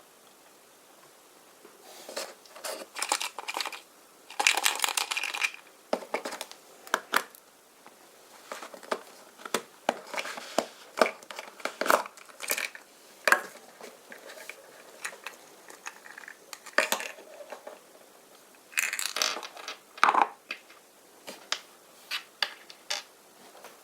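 Foil wrapper of a chocolate surprise egg being unwrapped: crinkling and tearing, with many small sharp clicks and crackles and two longer bursts of crinkling.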